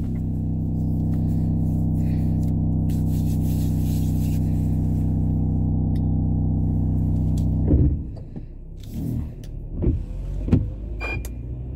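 A steady buzzing drone inside a car, even in pitch, which the driver wonders is the rear windshield wiper; it cuts off suddenly about eight seconds in, followed by a few light knocks and clicks that sound to her like metal on the window.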